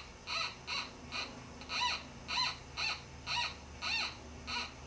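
MiniPulse Plus pulse-induction metal detector giving a short tone each time a small gold nugget target is swept over its search coil. About nine beeps, roughly two a second, each rising and falling in pitch.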